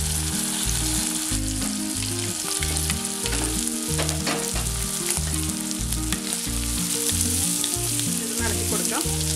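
Boiled clam meat frying in hot coconut oil with onions, crushed chilli and curry leaves, sizzling steadily while a spatula stirs and scrapes through it. Underneath runs a low hum that steps in pitch every half second or so.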